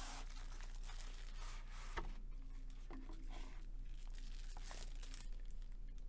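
Packaging of an Apple Magic Keyboard box being torn open and handled, with irregular tearing and crinkling rustles and one sharp click about two seconds in.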